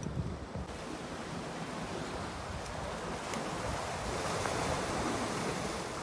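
Sea surf washing in: a steady rush of water that comes in sharply under a second in, swells about four seconds in and eases off near the end.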